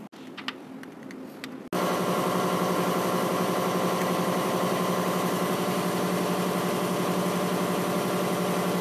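A few light clicks, then about two seconds in a loud, steady engine-like mechanical drone starts abruptly and runs on evenly.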